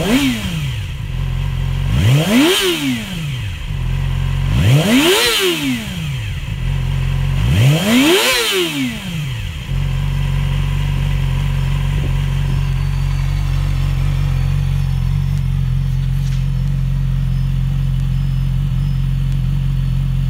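2017 Yamaha YZF-R6's 600 cc inline-four, heard through an Akrapovic exhaust, blipped in short revs about every two and a half seconds, each climbing a little higher than the last. About ten seconds in it settles to a steady idle.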